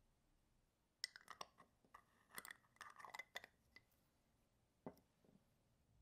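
Steel watchmaker's tweezers clinking and tapping against a small glass jar of cleaning fluid while a part is rinsed clean: a quick cluster of light clinks for about three seconds, then one more near the end.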